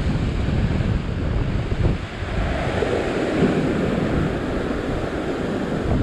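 Rough surf breaking and washing over a rock ledge, with a heavy wash surging up about halfway through. Wind buffets the microphone throughout with a low rumble.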